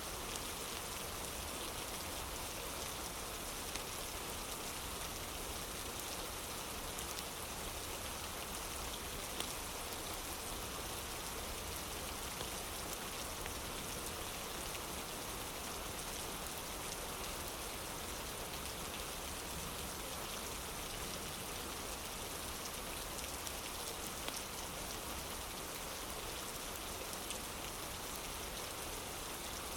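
Steady rain falling on a wooden porch: an even hiss with scattered light ticks of individual drops.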